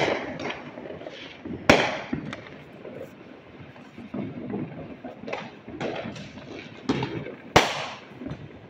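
Aerial fireworks bursting: three sharp bangs, one at the start, one a little under two seconds in and the loudest near the end, with smaller pops and crackling between them and each bang trailing off in an echo.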